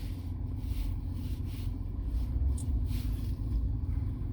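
BMW 325xi's inline-six engine idling with a steady low rumble. The car has a logged cylinder 1 misfire.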